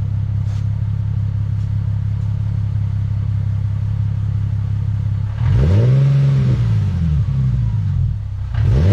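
Nissan 370Z's 3.7-litre V6 idling steadily through a newly fitted ISR Y-pipe and single-exit exhaust, then revved about five seconds in, the pitch rising and falling, with smaller throttle blips after it and another near the end.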